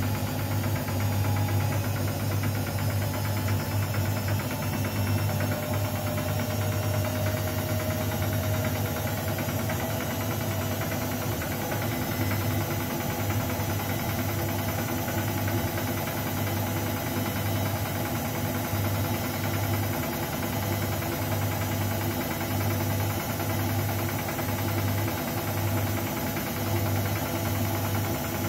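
Arçelik 3650 front-loading washing machine in an intermediate spin with an unbalanced load: the motor whine rises slowly in pitch over a steady low hum, and the hum starts to pulse with the drum's vibration in the second half.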